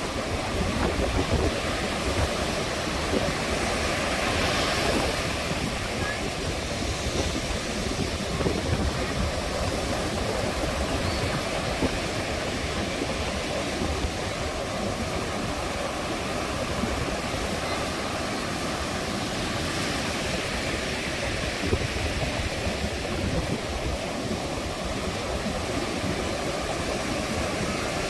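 Sea waves breaking and washing up a beach: a steady rush of surf, swelling a little a few seconds in and again later.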